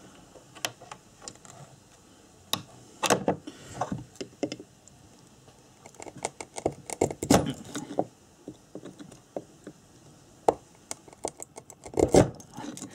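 Small flat screwdriver picking and scraping at the copper winding of a motorcycle ignition stator coil, with irregular light clicks, scratches and a few soft knocks as the stator is handled on a metal bench. The corroded wire is being prised off the coil pole so that the faulty ignition coil can be rewound.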